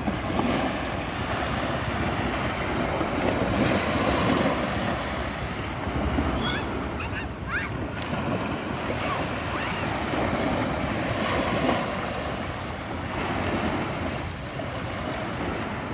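Sea waves breaking and washing ashore, surging louder and softer every few seconds, with wind buffeting the microphone.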